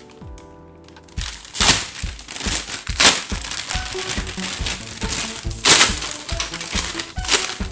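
Clear plastic bags holding plastic model kit runners crinkling and crackling as they are handled and shaken, starting about a second in, with a few louder crackles, over background music.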